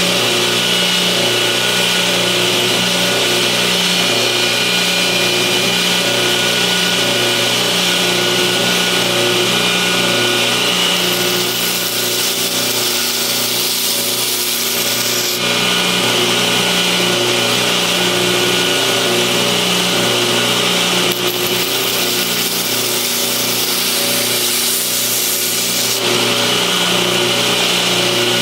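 Belt grinder running steadily as a steel pocket-knife blade is ground flat against the belt, with a harsher grinding hiss coming in twice when the steel is pressed harder.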